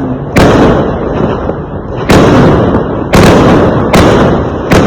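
Fireworks going off: five loud bangs about a second apart, each dying away slowly, over a continuous rumble and crackle.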